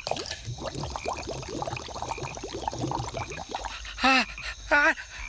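Cartoon sound effect of liquid bubbling and trickling as a sneeze-cure potion is poured and mixed, a quick run of many tiny bubbly blips. About four seconds in come two short, louder warbling sounds with wavering pitch.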